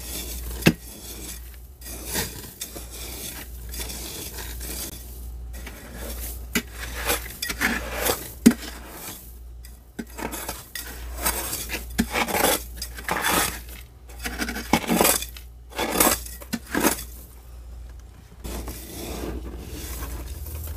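Metal spoon scraping and scooping soft frost build-up inside a freezer, in repeated scraping strokes that come in bursts, with a few sharp clicks of metal on the freezer.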